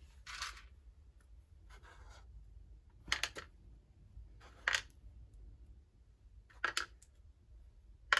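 Small craft buttons being picked up and dropped one at a time into the compartments of a cardboard tray: about five short clicks and rustles spaced a second or two apart.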